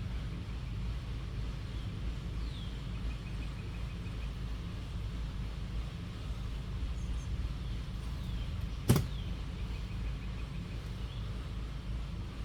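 Steady low rumble of background noise, with a few faint high chirps and short trills, and one sharp click about nine seconds in.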